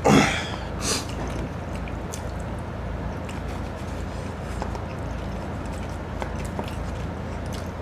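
Close-miked eating: small clicks of chopsticks against a plastic takeout tray and faint chewing over a steady low hum. It opens with a brief loud vocal sound, and a second smaller burst comes about a second in.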